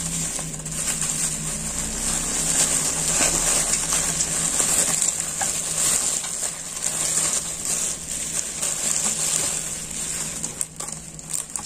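Bubble wrap being unwrapped and pulled off a package by hand: a continuous crinkling, crackling rustle of plastic with many small clicks.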